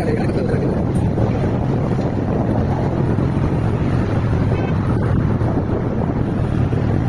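Wind buffeting the microphone of a two-wheeler riding along at speed: a steady low rumble, with engine and traffic noise under it.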